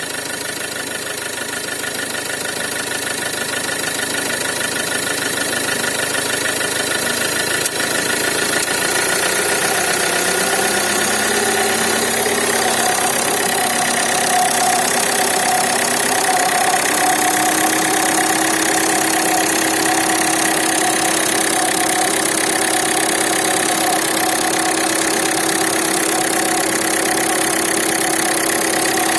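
Ford Fiesta 1.4 TDCi four-cylinder diesel idling with the air conditioning on. A sharp click comes about eight seconds in; after it, whining tones come in over the steady engine sound, one rising briefly and others holding steady: the noise the car makes when the A/C is on.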